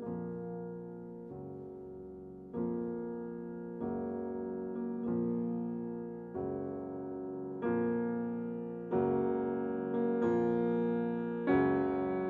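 Background music of slow piano chords, a new chord struck about every 1.3 seconds and left to ring out, growing slightly louder toward the end.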